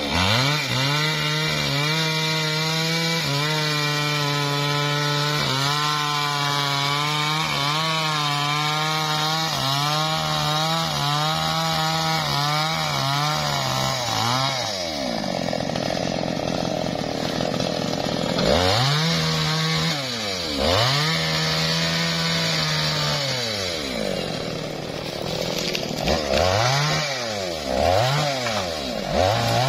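Two-stroke chainsaw cutting through a felled teak trunk at full throttle, its pitch wavering under load for about the first fourteen seconds. It then drops to idle and is revved up twice, and blipped three times in quick succession near the end.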